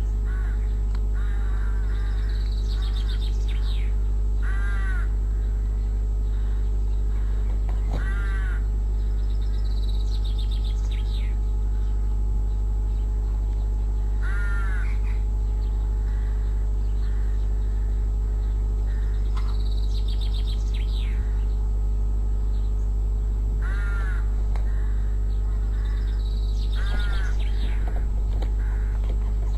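Rooks cawing, single harsh caws repeated at irregular gaps of a few seconds, over a steady low hum.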